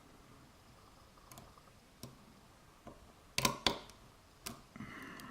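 Lock pick working the pins of an FAC pin-tumbler lock under tension: faint scraping with a few sharp metallic clicks, two close together about three and a half seconds in and another about a second later.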